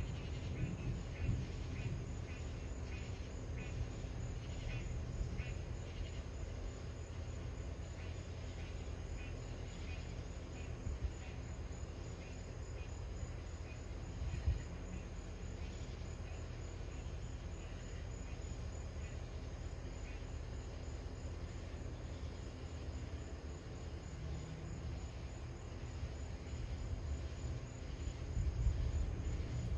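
Crickets chirping in a regular pulse of about two or three chirps a second, plainest in the first several seconds, over a steady low rumble that swells near the end.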